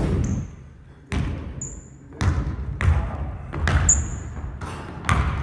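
Basketball bouncing on a hardwood gym floor, a string of thuds that echo in the hall, with two short, high sneaker squeaks on the floor, about a second and a half in and again near four seconds.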